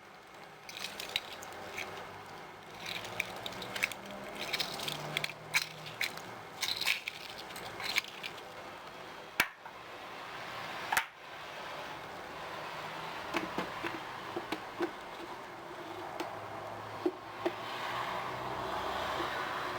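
Kitchen handling sounds while making juice: a run of small clicks, crackles and scrapes, two sharp knocks about halfway through, then a steadier rustling haze with a few light ticks.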